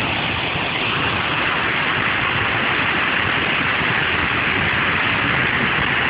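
Water pouring down a waterfall more than 15 metres tall and rushing over rocks: a steady, unbroken rush of noise.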